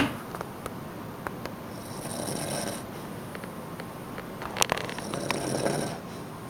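A sleeping man snoring: two long snores about three seconds apart, each lasting about a second, with a few sharp clicks between them.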